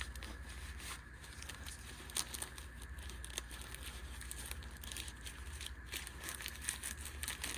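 Small gear being handled and packed: scattered light rustling and crinkling with occasional small clicks, over a steady low hum.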